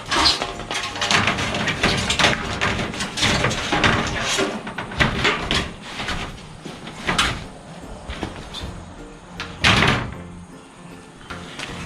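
Background music over intermittent knocks and clatter from construction work, with loud sharp strikes about 7 and 10 seconds in.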